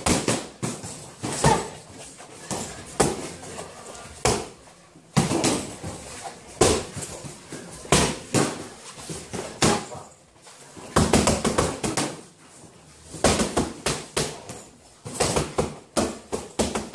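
Irregular thuds and smacks from boxers sparring in a ring: gloved punches landing and feet striking the canvas, some single, some in quick flurries.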